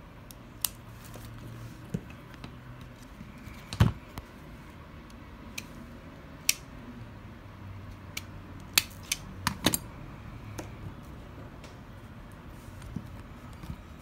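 Scattered sharp clicks and snaps of a hand-held Pittsburgh 6-1/2 in. automatic wire stripper being worked on wire. The loudest snap comes about four seconds in, and a quick cluster of clicks follows around nine to ten seconds.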